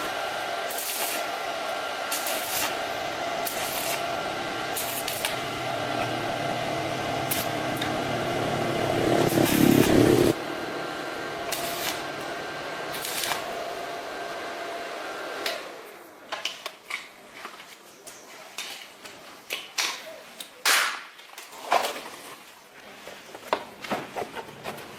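A motor or power tool runs steadily, growing louder before it cuts off suddenly about ten seconds in; after that come scattered sharp clicks and knocks of work on metal parts.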